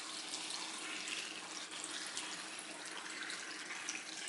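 Thin, cloudy water-kimchi brine poured in a steady stream from a jug onto stonecrop greens in a glass dish, splashing and trickling as the dish fills.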